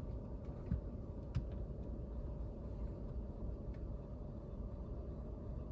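Wind buffeting a car, heard from inside the cabin as a low, rough rumble with a faint steady hum and a few light clicks.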